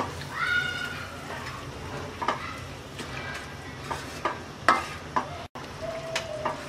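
Wooden spoon stirring a pan of chana dal with spinach and scraping against the stainless steel karahi, several separate scrapes, the loudest about four and a half seconds in. Under it is a steady sizzle from the dal cooking in its freshly added hot water.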